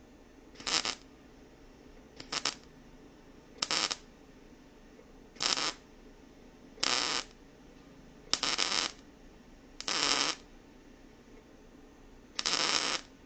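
MIG welder arcing in short bursts: about eight brief spurts of arc noise, each half a second to a second long, with pauses of one to two seconds between them, as when laying stitch or tack welds.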